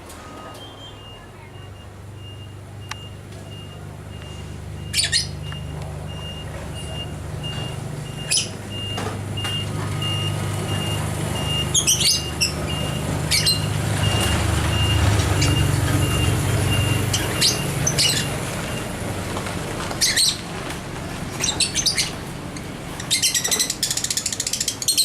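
Lovebird giving short, sharp chirps and squawks, a few spaced out and then a rapid run near the end. Under them runs a vehicle's low engine rumble that swells and fades, and a fast train of high beeps through the first two-thirds.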